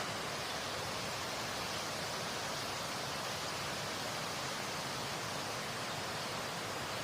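Waterfall: a steady rush of falling water with no change throughout.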